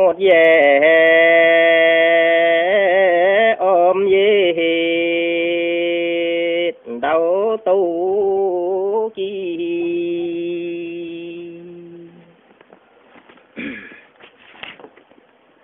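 A man singing a Dao Tuyen folk song solo in long held notes that waver in pitch, with short breaks between phrases; the voice fades out about twelve seconds in, leaving only faint sounds.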